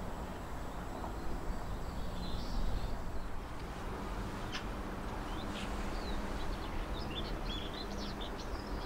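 Outdoor ambience: a steady low rumble, with small birds chirping on and off in the second half.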